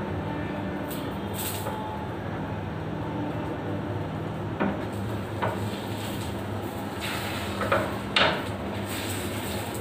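A few short knocks of kitchen utensils, two of them close together near the end and loudest, over a steady hum.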